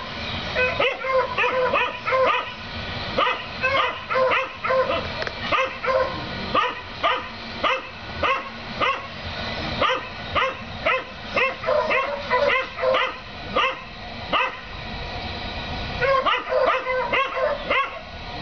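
Dogs barking repeatedly at a rabbit, about two sharp barks a second, with a short lull near the end before the barking starts again.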